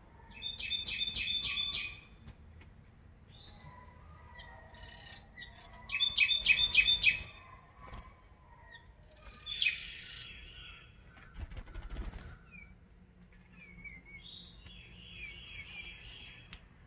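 Wild songbirds singing: a loud song of about five quick repeated notes comes twice, with other chirps between and a softer run of repeated notes near the end.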